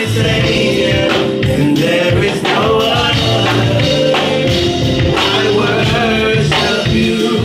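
Live gospel-style music: sung vocals over full band accompaniment with a steady beat.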